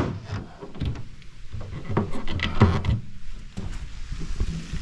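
Boat storage hatch lid being opened and handled: a sharp knock at the start, then several clunks and rattles of the lid and hinges.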